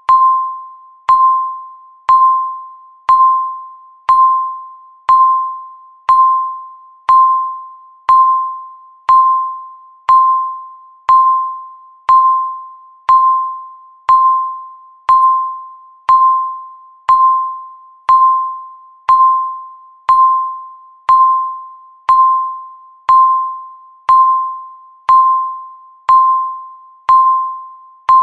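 Countdown timer's tick sound: a short electronic ping at one pitch, once a second, each dying away quickly, in an even steady rhythm.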